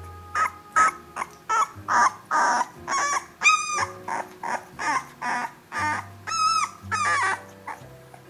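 17-day-old Nova Scotia Duck Tolling Retriever puppies whining and yelping in quick succession, about two cries a second, with two longer arching whines among them. The cries stop near the end.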